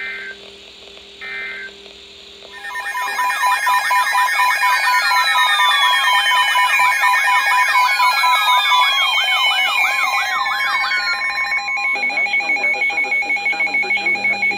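Emergency Alert System tones. First come two short, buzzy data bursts of the digital alert code, each about half a second long. From about two and a half seconds in, a loud layer of overlapping alert tones starts: fast warbles, long falling sweeps and steady beeps. Near twelve seconds this gives way to a rapid, even beeping of about four pulses a second.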